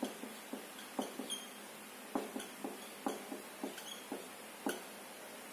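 Marker pen writing on a whiteboard: an irregular string of short taps and strokes as the tip is pressed and lifted, with a few brief high squeaks from the felt tip.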